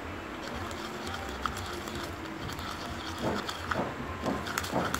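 Plastic spoon stirring and scraping a thick toothpaste-and-sugar paste in a plastic cup. The scratchy, squelchy strokes grow louder and come more often from about three seconds in, over a steady low hum.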